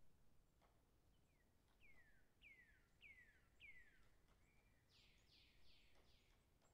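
Near silence with faint bird song: a run of about five descending whistled notes, then a quicker group of higher descending notes near the end.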